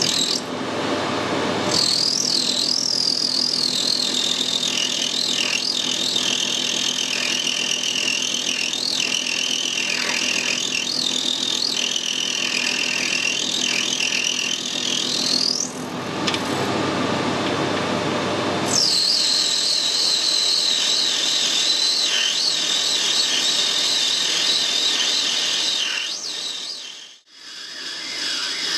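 Metal lathe turning down a brass hex bar, the cut giving a high, wavering whine over the running machine. The whine breaks off about halfway through and returns a few seconds later, then fades out near the end.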